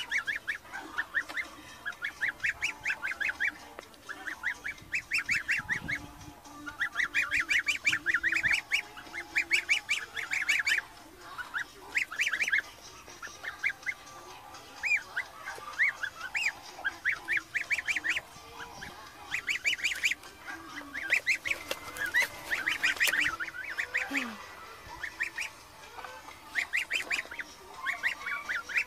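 Young goose calling in quick runs of short, high honks, each run about a second long, repeated over and over with brief gaps.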